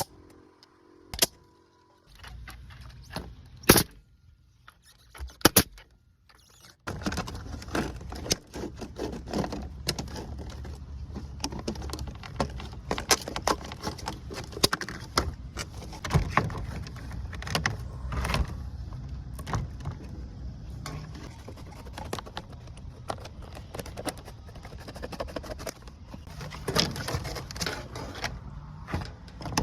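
Repeated clicking and clattering of vinyl siding being worked by hand and with hand tools. At first there are only a few separate sharp clicks; from about seven seconds in they come thick and fast over a low steady rumble.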